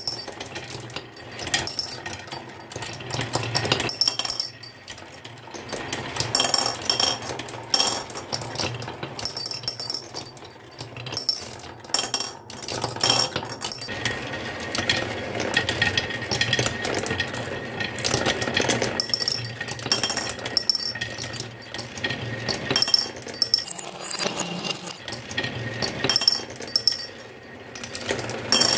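Marbles rolling and clattering down a wooden marble-run track: a dense, continuous stream of rapid clicks and clacks, with bright clinks where balls hit one another.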